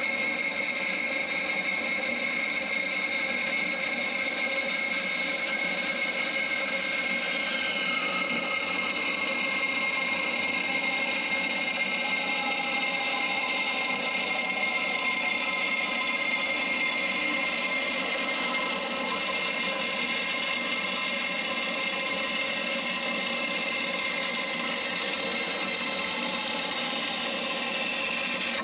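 Johnson metal-cutting bandsaw running its blade through a solid block of 6061 aluminum bar. A steady cutting sound with one high, constant whine throughout.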